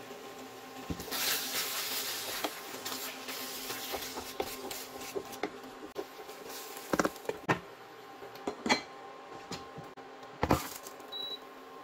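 Wooden spatula stirring and scraping a thick ground beef and vegetable sauce in a stainless steel pot, followed by several sharp knocks of wood and metal against the pot, over a steady hum. A short high beep comes near the end.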